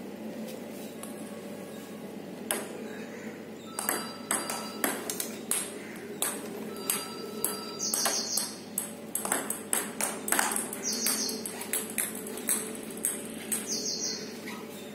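Table tennis rally: a celluloid ball clicks sharply off rackets and the table, about two or three hits a second. The hits begin a few seconds in and stop shortly before the end.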